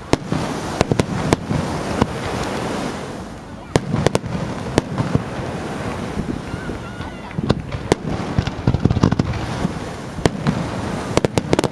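Aerial fireworks display: a run of sharp bangs and crackles, some in quick clusters, over a steady background din.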